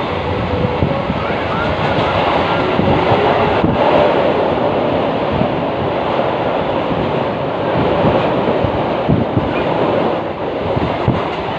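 Passenger train running along the track, heard from inside the coach at a window seat: a steady, loud rush of wheel and track noise.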